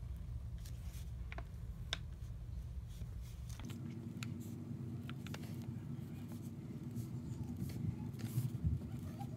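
Pen scratching on journal paper in short, faint strokes as a small drawing is outlined and coloured in, over a steady low hum that changes in tone about four seconds in.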